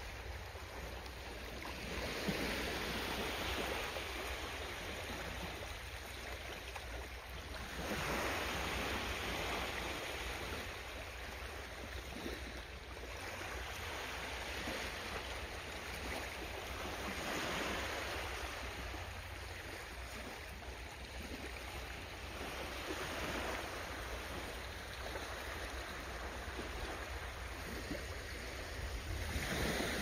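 Sea waves washing in and drawing back, a hissing swell about every five or six seconds, over a steady low hum.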